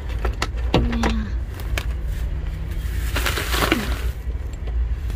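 Inside a moving minivan: a steady low road and engine rumble, with scattered clicks and knocks of loose items and camera handling, and a brief rush of noise about three seconds in.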